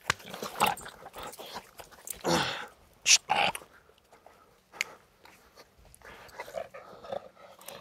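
American Staffordshire terrier growling and barking in a few short aggressive outbursts, the loudest about three seconds in: the dog is reacting to excitement, its trigger for aggression.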